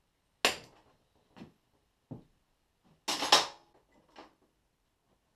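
A series of sharp metallic cracks and knocks as a puller breaks the taper-fit crankshaft sprocket of a 1955 Panther Model 100 engine free: one about half a second in, the loudest cluster about three seconds in, with smaller knocks between and after.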